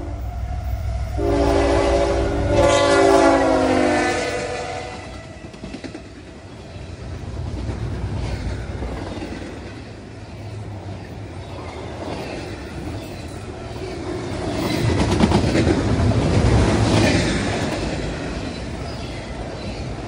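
Diesel freight locomotive horn blowing a long chord about a second in, its pitch dropping as the CSX ET44AH locomotives pass. It gives way to the rumble and clatter of double-stack intermodal well cars rolling by, louder again in the last third.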